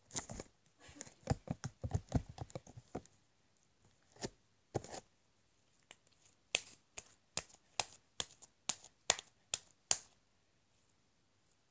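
Overly sticky slime being squeezed and pulled apart in the hands, giving irregular sharp clicks, pops and small squelches, thick in the first few seconds and sparser later. She puts the stickiness down to having added too much gel.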